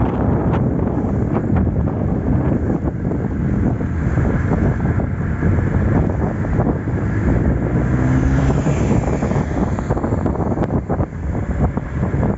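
Heavy wind buffeting the microphone as it moves at descending speed, with a faint humming tone briefly in the middle.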